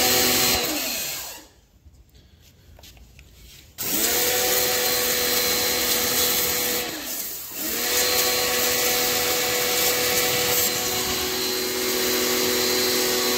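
Electric pressure washer's motor and pump running with a hiss of water spray, then winding down and stopping about a second in. It starts again with a rising pitch near four seconds, dips and restarts around seven seconds, and runs steadily after that, cutting in and out as the spray gun's trigger is squeezed and released.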